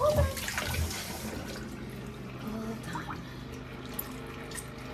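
Water splashing and dripping into a stainless steel kitchen sink as a wet puppy is rinsed and its fur wrung out, with short sharp drips now and then. A brief voice-like sound comes right at the start.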